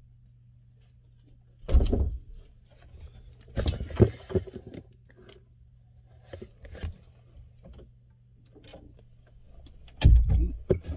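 Handling noise from a cardboard box being lifted and shifted about: scattered knocks, thumps and scrapes, the loudest cluster of thumps near the end, over a faint steady low hum.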